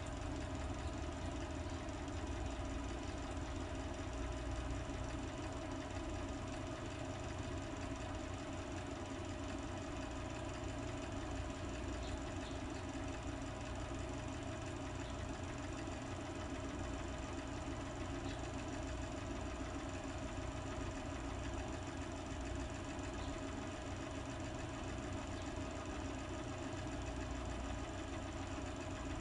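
Steady machine hum with a constant mid-pitched tone over a low rumble.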